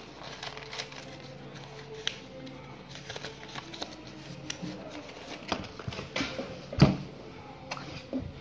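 Sheet paper crinkling and clicking as a paper chatterbox is folded and creased by hand, with a louder knock about seven seconds in.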